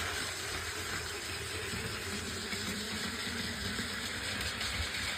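Train running: a steady low rumble with a continuous hiss over it, even throughout.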